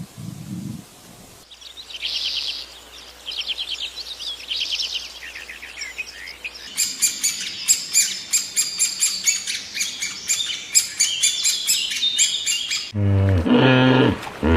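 Small birds chirping and trilling in quick runs of high notes, becoming a dense, busy chatter about halfway through. Near the end a loud, low, pitched animal call cuts in.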